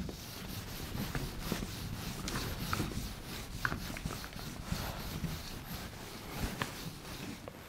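Whiteboard eraser wiping across a whiteboard: a faint, continuous rubbing with small scattered ticks.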